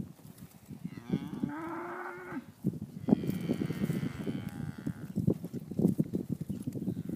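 Cattle mooing: two drawn-out moos, the first starting about a second in and the second about three seconds in, over irregular low thuds.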